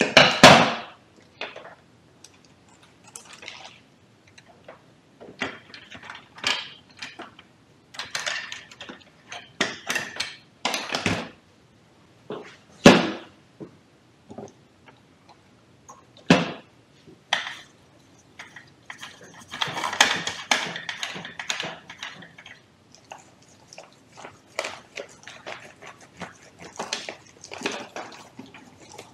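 Work-bench handling noise: a screwdriver and small copier fuser parts clicking and clattering as they are picked up and set down on a plastic-covered surface. There are irregular sharp knocks, and a longer stretch of rustling about twenty seconds in.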